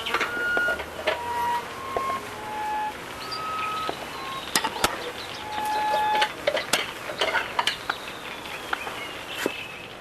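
A jumble of short electronic beeps at different pitches, mixed with sharp clicks, and a thin whistle sliding slowly downward in the last few seconds.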